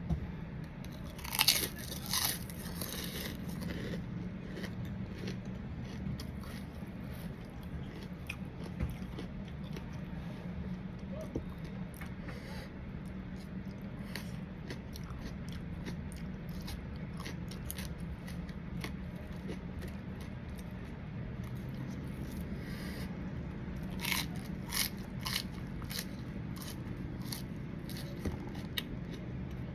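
Close-up chewing and crunching of a person eating papaya salad with crab and fresh shrimp: a run of small wet clicks, with louder crunches a second or two in and again near the end. A steady low hum runs underneath.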